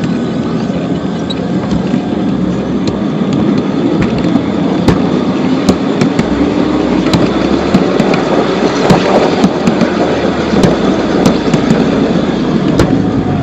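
Homemade miniature sit-on train with a home-built VVVF inverter drive running along its track: steel wheels rolling on the rails with many irregular sharp clicks, under a motor whine that rises slowly in pitch through the middle as the train speeds up.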